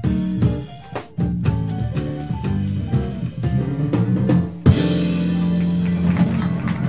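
Small band of piano, electric bass, acoustic guitar and drum kit playing short accented ensemble hits with the drums, then a final chord struck about two-thirds of the way in and held.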